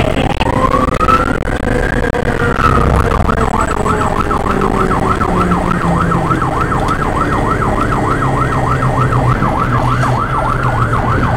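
Fire engine siren: a wail that sweeps up and eases back, then switches about three seconds in to a fast yelp rising and falling about three times a second. The truck's engine runs steadily underneath.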